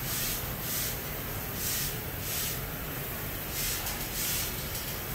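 Hissing that comes and goes in short spells, over a steady low hum.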